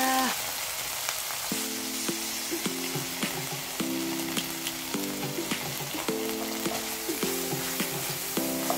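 Vegetables sizzling in a hot frying pan as sauce is added, with scattered light clicks of a wooden spatula stirring.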